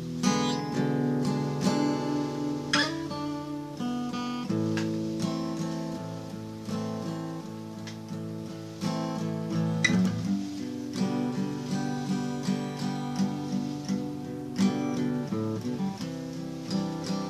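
Acoustic guitar music: chords strummed and let ring, turning about ten seconds in into a steady picked pattern of repeated notes.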